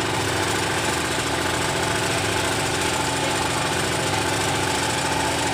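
The engine on a squid-fishing boat running steadily: a constant, even mechanical drone with no change in speed.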